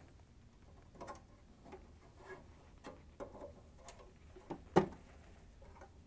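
Light metallic clicks and taps from a steel microwave door torsion spring being worked into the door hinge. One much louder, sharp click comes about three-quarters of the way through.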